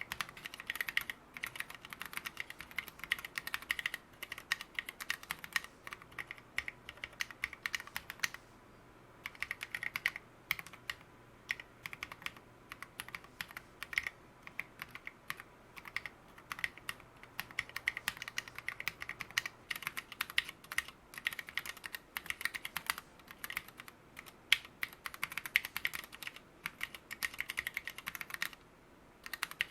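Steady fast typing on an OLKB Planck keyboard with lubed Gateron Merlot 60g switches and SA-profile keycaps, a dense run of keystroke clicks. Typing breaks off briefly about a third of the way in and again near the end.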